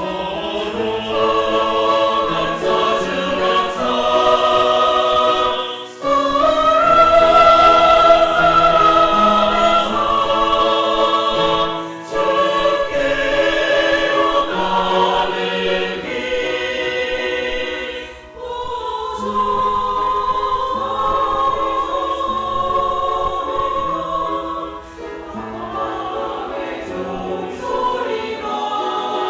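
Church choir singing a hymn in parts: long held notes in phrases of about six seconds, with a brief breath between phrases.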